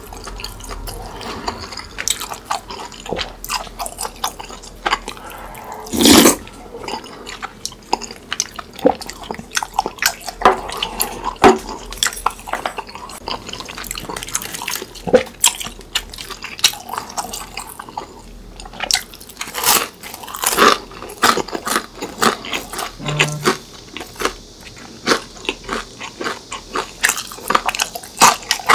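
Close-miked eating: wet, sticky chewing of tteokbokki rice cakes in sauce and bites into crunchy fried food, heard as many short clicks, smacks and crunches. One louder mouth sound stands out about six seconds in.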